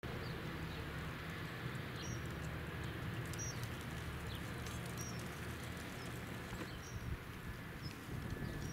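Low, steady drone of a distant Airbus AS365 Dauphin rescue helicopter's rotors on approach, with small birds chirping briefly several times over it.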